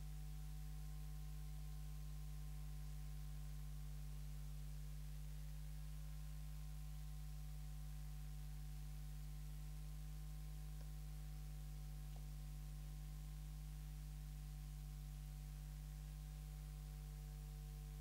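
Steady electrical mains hum, a low drone with a stack of fainter higher overtones, unchanging throughout; no other sound stands out.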